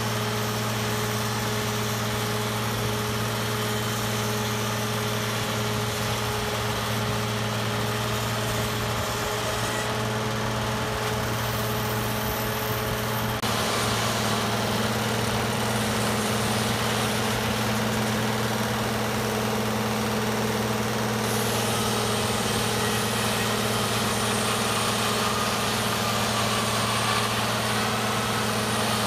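Oliver 1600 tractor engine running steadily at idle, a constant low hum, shifting slightly in tone about halfway through.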